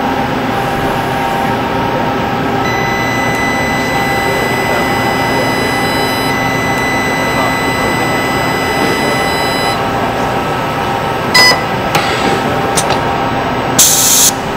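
Resistance spot rivet welding equipment running, heard over a hall's loudspeakers: a steady machine drone with a high steady whine that stops about ten seconds in. Then come a few sharp clicks and a short burst of hiss near the end.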